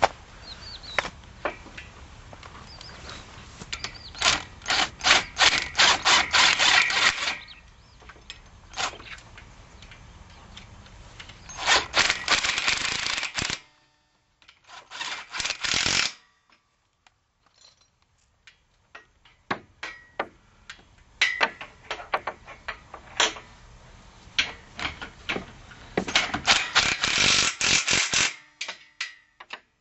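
Cordless drill driving bolts into a galvanized steel solar-panel mounting rail. It runs in several bursts of rapid clicking a few seconds long, with pauses between them.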